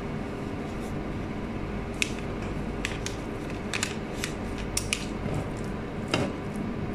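Soft handling sounds of hands folding thin pastry sheets into briouat triangles and touching the plastic wrapper of the pastry pack: scattered small clicks and crackles over a steady low room hum.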